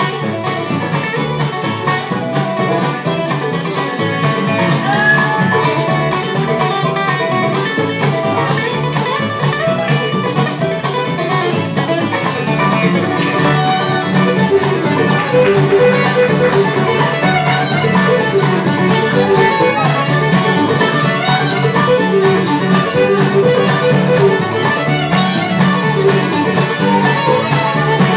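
Live bluegrass band playing an instrumental: fiddle bowing over acoustic guitar, mandolin, upright bass and drums.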